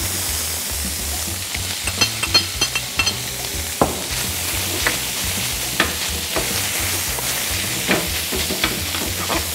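Soya chunks and sliced red onion sizzling steadily in oil in a steel frying pan. A metal spoon knocks and scrapes against the pan about once a second as the mixture is stirred. About two seconds in there is a brief flurry of clatter and crackle as the onion goes in.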